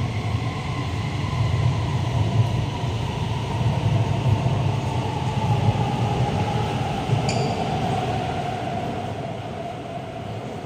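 Guangzhou Metro Line 18 train moving at the platform: a steady low rumble with a motor whine slowly falling in pitch, a brief high squeak about seven seconds in, and the whole sound fading near the end.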